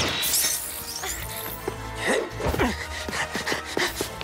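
Cartoon action scene: dramatic background music under repeated sci-fi zap effects of energy beams blasting and striking the ground, with quick whooshes of dodging. The zaps glide down in pitch, one right at the start and more about two seconds in.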